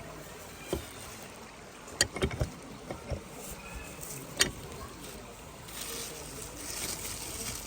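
A few sharp knocks and clicks, several close together about two seconds in, over a steady outdoor background, with a hissing noise building near the end.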